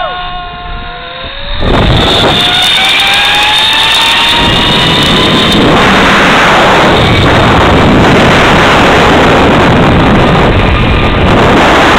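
Zip-line trolley pulleys running down a steel cable. About two seconds in, a whine starts and climbs steadily in pitch as the rider picks up speed. From there on a loud, steady rush of wind buffets the microphone over the trolley's rumble.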